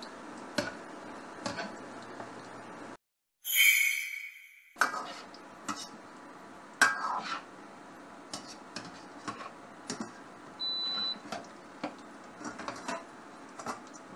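Dough balls deep-frying in oil in a wok with a steady sizzle, while a metal utensil clinks and knocks against the pan many times, once with a loud ringing clatter a few seconds in. A short beep from the induction hob's control panel sounds about three-quarters through.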